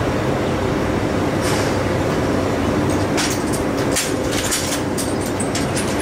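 Steady machine rumble with a low hum, and a run of sharp metallic clanks and rattles between about three and five seconds in.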